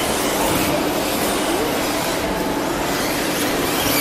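Electric RC buggies racing: the whine of their motors rising and falling over a steady wash of tyre and running noise.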